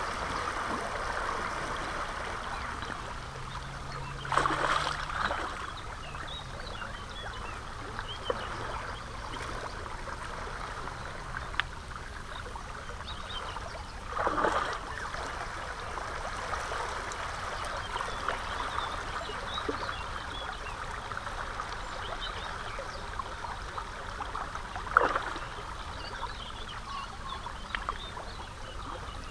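River current running past the stones at the water's edge, a steady rush of water. Three short splashes stand out about 4, 14 and 25 seconds in.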